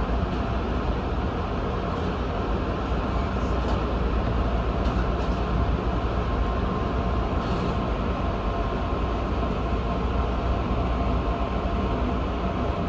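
Electric passenger train running steadily along the track, heard from its front cab: an even rumble of wheels on rail with a faint steady high tone above it.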